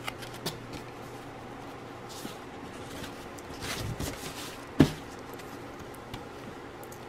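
Hands handling a cross-stitch kit's printed fabric and embroidery floss on a table. There are a few light clicks, a soft rustle in the middle, and one sharp knock just under five seconds in, all over a steady low hum.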